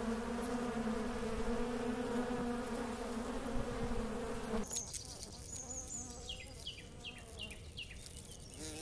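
Honeybees buzzing in a steady hum. About halfway through it drops to a fainter buzz, with a quick run of short, falling high chirps.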